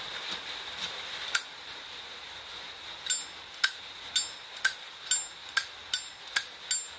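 Silver-plated Zippo lighter's hinged lid being flicked open and snapped shut, giving sharp metallic clicks with a bright ringing edge. A few soft clicks come first, then a steady run of about two clicks a second from around three seconds in.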